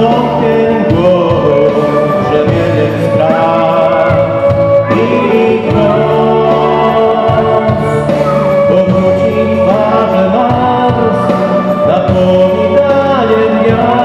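A band performing a Polish Christmas carol (kolęda) live: several voices singing together in long held notes over instrumental accompaniment.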